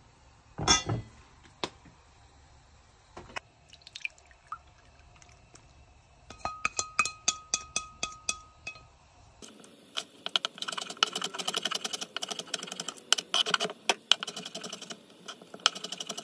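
Wooden chopsticks tapping against a stainless-steel mixing bowl, about four taps a second, each tap making the bowl ring, as beaten egg is scraped out of it. Then a kitchen knife chops green onion and carrot on a wooden cutting board in quick, steady strokes.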